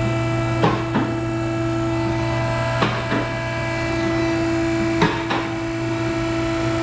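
Vehicle lift raising the SUV: the lift's electric hydraulic pump motor hums steadily, and the safety locks click in pairs about every two seconds as they ratchet past each stop.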